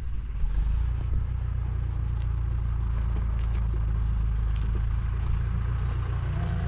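Tractor engine running steadily: a low, even drone.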